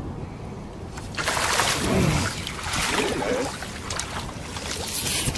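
Water splashing as a hooked leopard shark is scooped into a landing net alongside the boat, starting about a second in.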